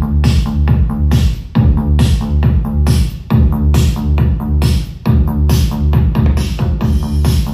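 Loud electronic dance music with a heavy, deep bass line and a steady beat, played through a B3 EB-1500 powered subwoofer with a 40 cm woofer as a bass demonstration.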